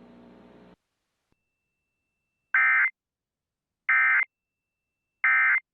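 Emergency Alert System end-of-message code: three identical short bursts of digital data tones (the SAME 'NNNN' signal), each about a third of a second long with about a second of silence between them, marking the end of the alert broadcast. A faint hum stops under a second in.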